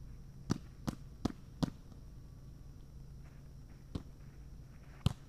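A volleyball smacking four times in quick succession, about three a second, then hit twice more a second or so apart as it is passed back and forth with hands and forearms.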